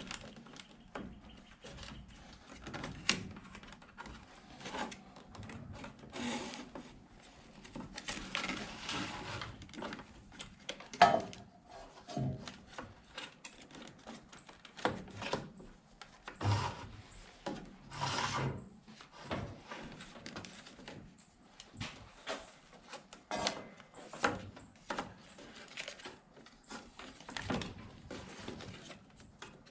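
Irregular clicks, knocks and rubbing from a self-retracting power cord reel being worked on by hand, with one sharper knock about eleven seconds in.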